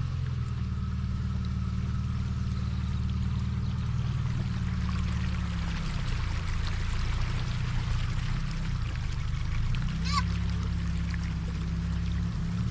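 SUV engine running at low revs while its front wheel ploughs slowly through floodwater over a road, with a steady wash and splash of water around the tyre. The engine note shifts about six seconds in and again near ten seconds.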